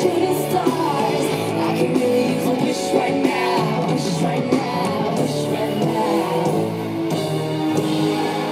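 Live concert music over a festival sound system: a sung melody over a backing track, recorded from within the crowd.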